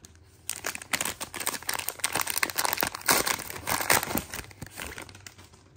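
A foil-and-plastic Panini Donruss Optic trading card pack crinkling and tearing as it is ripped open and the cards are pulled out. The crinkling starts about half a second in, runs as dense rapid crackles, and dies away about five seconds in.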